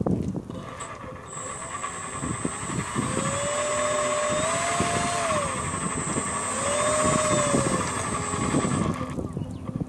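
Parkzone Focke-Wulf 190A-8 RC model's electric motor and propeller whining as it taxis, the pitch rising and falling twice with the throttle, then cutting off about nine seconds in.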